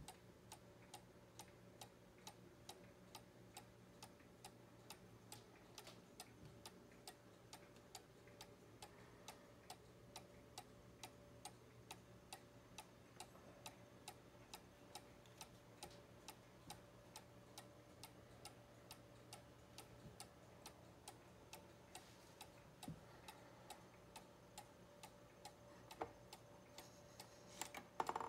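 Mechanical cuckoo clock ticking faintly and evenly, its pendulum escapement beating a steady rhythm. A few louder clicks come near the end.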